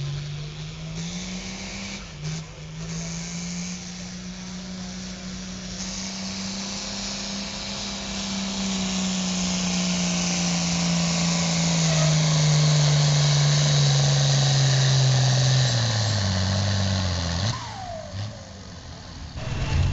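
Turbocharged diesel pulling tractor at full throttle dragging a weight sled. The engine holds a steady high pitch under a loud rush that builds toward the middle, then the pitch sinks under the load, and the engine drops away near the end.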